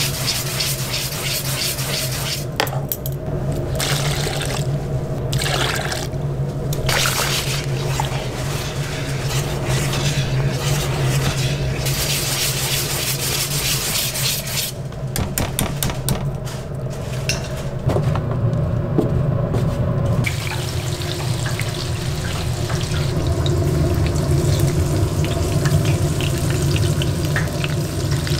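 Running water, a steady rush that drops out abruptly several times, over a steady low hum.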